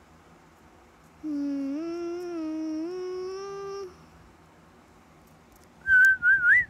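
A person humming a short tune for about two and a half seconds, the pitch stepping up and down. Near the end there is a brief whistle that wavers and rises in pitch.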